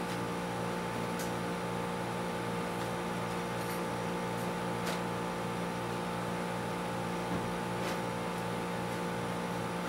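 Steady machine hum with several fixed tones and a slight regular pulse, with a few faint clicks.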